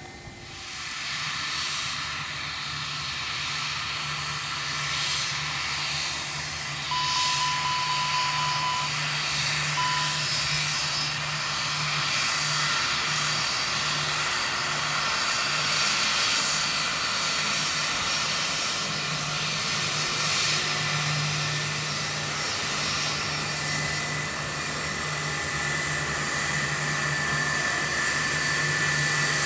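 Airbus A321-232's IAE V2500 turbofan engines running at taxi power as the jet backtracks along the runway: a steady whine over a rushing hum, growing louder as it draws nearer.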